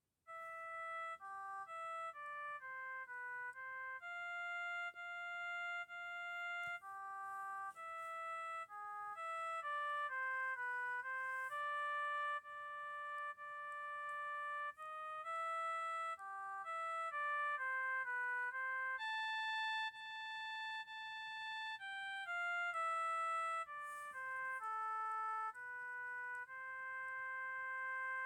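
Vortex Image phone ringtone: a simple one-voice electronic melody of clean tones, each note fading after it sounds, mixing quick runs with a few long held notes. It starts suddenly out of silence.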